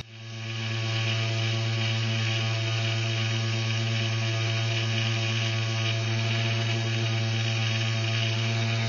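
Mini hobby lathe's motor running steadily with a strong hum, spinning a wooden dowel while sandpaper is held against it, a steady hiss of sanding over the motor. The sound fades in over the first second.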